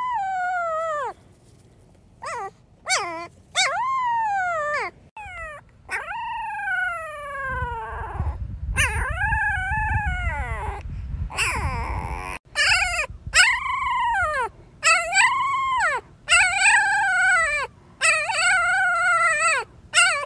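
A dog howling and whining in a long run of drawn-out calls, each sliding down in pitch or rising and falling, with short breaks between them.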